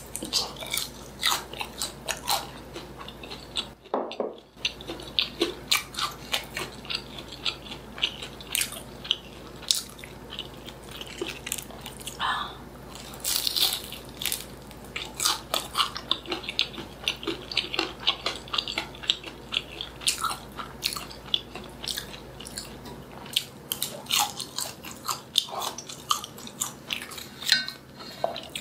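Close-miked eating sounds: a person biting and chewing Korean snack food (bunsik), a dense irregular run of short wet clicks and smacks several times a second. The sound drops out briefly about four seconds in.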